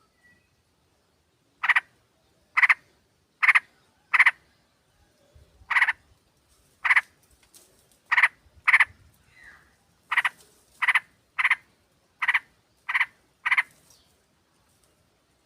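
Yellow-vented bulbul (trucukan) calls from a lure recording: short, harsh chuck notes repeated about once a second at an uneven pace, around fourteen in all.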